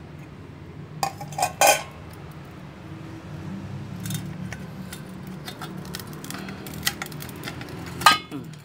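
Enamelled steel plates clinking and knocking against one another as they are handled and pulled apart. There are several light clinks about a second in, a few more midway, and a louder, ringing clank near the end.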